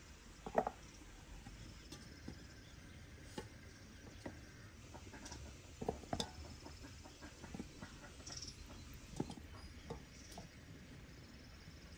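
Soft, scattered knocks of raw pumpkin pieces being set down in an aluminium pot and against each other, the loudest about half a second in. Faint bird chirps sound in the background.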